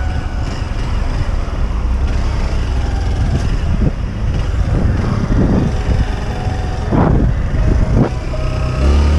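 Motorcycle engine running as the bike rides slowly in traffic, with a low rumble and a few brief swells in the middle of the stretch.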